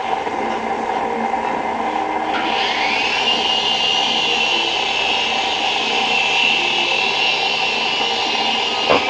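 Electric motors of a JXD 325 RC toy helicopter whirring. About two seconds in, a high whine rises in pitch and then holds steady as the rotors spin up. A short knock comes near the end.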